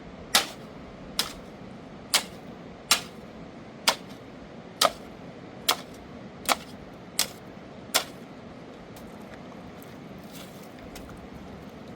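A run of sharp, evenly spaced knocks, a little more than one a second, that stop about eight seconds in, over a steady rushing background noise.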